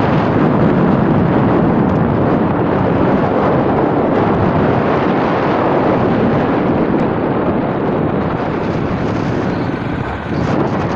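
Steady wind rushing over the microphone while riding a motorcycle, the engine and road noise running underneath, dipping a little about ten seconds in.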